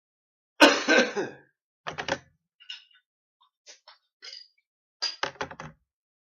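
A man coughs and clears his throat about half a second in. Several shorter, fainter sounds follow, and a quick cluster of sharp ones comes near the end.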